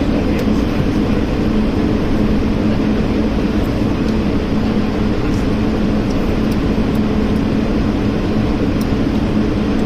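Steady cabin noise inside an Airbus A220-300 with its Pratt & Whitney PW1500G turbofans running: an even noise with a low steady hum.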